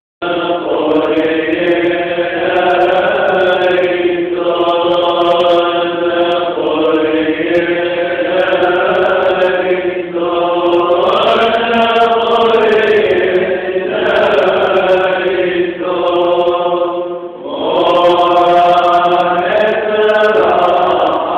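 Syrian Orthodox monks chanting a Lenten prayer, a single melodic line sung in phrases of a few seconds with brief breaths between them, including a short pause near the end.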